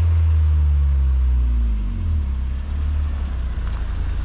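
Acura TSX (CU2) with a Yonaka catback exhaust and PLM header coming up and slowing down. Its low exhaust note drops in pitch over the first couple of seconds, then settles into a steady low rumble as the car rolls in close.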